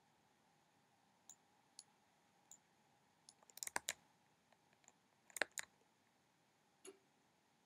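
Computer keyboard keys and mouse buttons clicking. A few faint single taps come first, then a quick cluster of clicks about three and a half seconds in, and a louder pair around five and a half seconds in.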